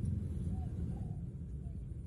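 A few faint, short squeaks from baby monkeys over a steady low rumble.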